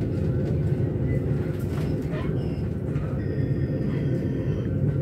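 S-Bahn electric commuter train running along the track, heard from inside the carriage as a steady low rumble, with faint high-pitched tones and a few light clicks from the wheels and rails.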